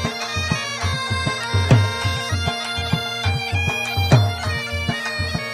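Background music: a reedy wind-instrument melody over a steady drone, with a regular drum beat.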